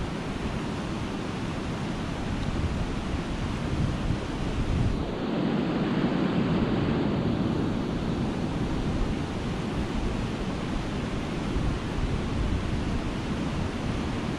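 Steady rush of white water pouring over a river weir, with wind on the microphone. It gets louder and duller from about five to eight seconds in.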